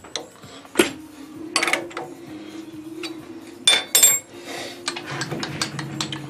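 Small steel parts and tools clinking and knocking as they are handled in a machine shop: several sharp metallic clinks, the loudest two close together near the middle. A steady low hum starts about a second in.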